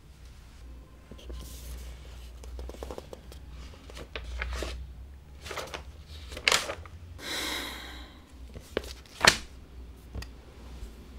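Sheets of paper being handled and flipped over: intermittent rustling with two sharp paper snaps, over a steady low hum.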